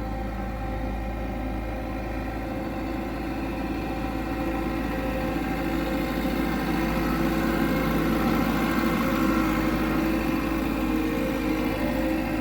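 Diesel engine of an earthmoving machine running steadily, getting somewhat louder around the middle.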